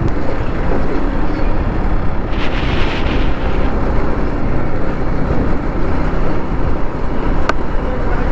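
A motorcycle running at road speed, with wind rushing on the microphone, steady throughout. A louder rush comes between two and three seconds in, and a single sharp click near the end.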